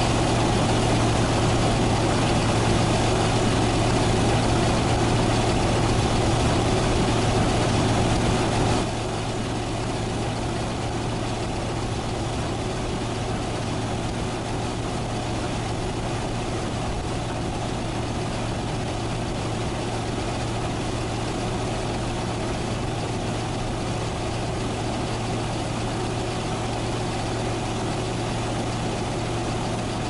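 Large farm diesel engines of a harvester and a John Deere tractor running steadily at working speed: a deep, even drone. About nine seconds in it becomes quieter and thinner but keeps going without a break.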